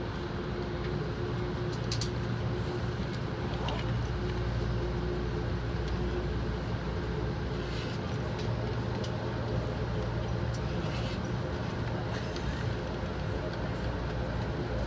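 Amtrak passenger cars rolling slowly past a station platform: a steady low rumble of wheels on rail with a steady hum over it, and a few faint sharp clicks here and there.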